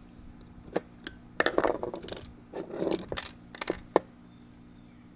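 Small metal clicks and clinks with short bursts of rattling as screws are unscrewed and taken out of an old saw's housing, busiest in the middle. A faint steady hum lies under it.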